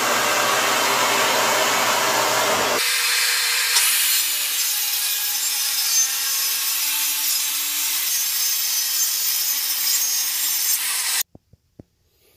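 A shop vac runs while a Craftsman circular saw cuts along a sheet of plywood, the vacuum drawing sawdust through a pipe fitting retrofitted to the saw. The low hum drops away about three seconds in, and all the sound cuts off suddenly near the end.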